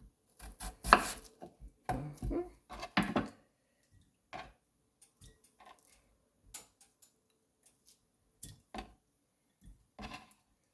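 Knife chopping peeled yellow yam into dice: a quick run of irregular knocks in the first three seconds or so, then sparser single strikes.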